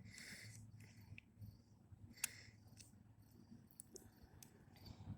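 Faint metallic clicks and light scraping from a hook pick and tension wrench working the pins of a TruGuard knob lock. The sharpest click comes about two seconds in.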